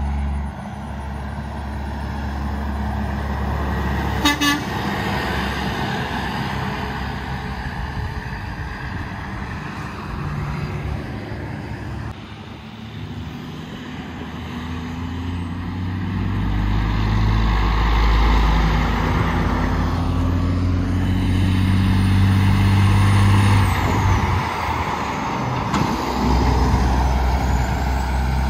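Heavy diesel semi trucks passing on a highway, engine rumble with road and tyre noise. A brief horn toot comes about four seconds in. Later a truck's engine gets louder and rises in pitch as it passes.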